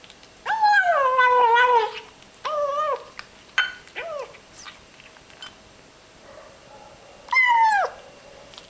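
Ginger kitten making whining, meow-like noises while it eats. There are four calls that each fall in pitch: a long one near the start, two short ones, and one near the end, with faint clicks of eating between them.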